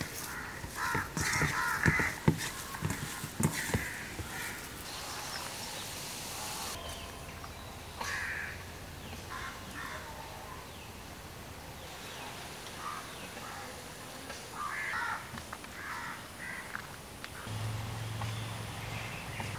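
Crows cawing repeatedly, with short sharp clicks from a hand working egg filling in a steel bowl during the first few seconds.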